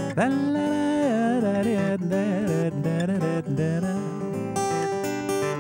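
Steel-string acoustic guitar fingerpicked in a gentle folk accompaniment. A man's voice holds a wordless line that wavers and bends over the first half, then the guitar plays on alone.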